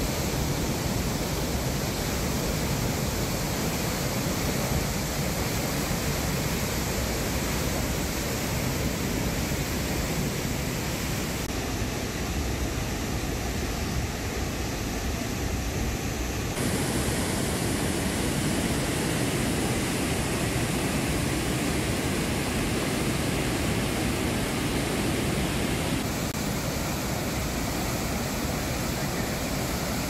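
Floodwater rushing through open dam spillway gates: a steady, dense rush of white water with no distinct events. Its tone shifts abruptly three times, about a third of the way in, about halfway and near the end.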